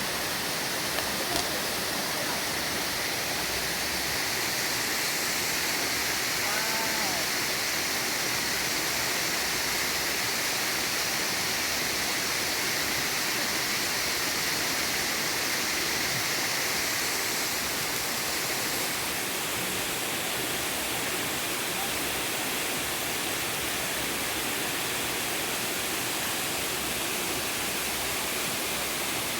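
Waterfall: a steady, dense rush of falling water pouring into a pool.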